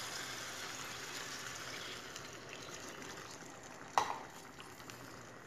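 A cup of water poured into a steel pan of turnips frying in hot spiced oil, hissing and bubbling for about two seconds, then dying down to a low simmer. A single sharp knock about four seconds in.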